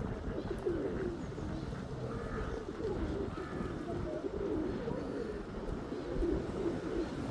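A flock of pigeons cooing, several low calls overlapping and repeating, over a low background rumble.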